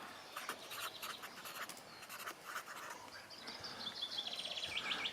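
Faint chaffinch song: a quick run of repeated high notes, falling slightly in pitch, in the last second and a half, over faint scattered chirps and scratchy ticks.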